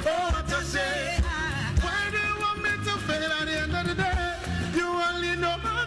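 Live band music with two men singing into microphones, backed by drums, keyboard and guitar.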